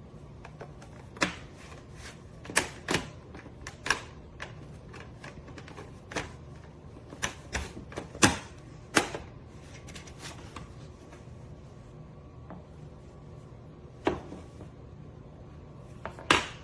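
Irregular sharp clicks and knocks, about a dozen spread unevenly, the loudest about eight seconds in.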